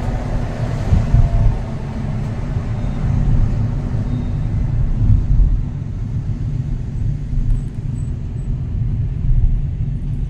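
Low, steady rumble of a car driving in traffic, heard from inside the cabin: tyre and engine noise.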